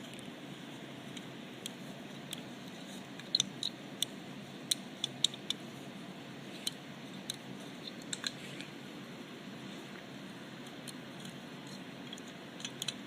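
Dover elevator push buttons being pressed by hand: a string of sharp, short clicks at irregular intervals, bunched in the first half with two more near the end, over a low steady hiss.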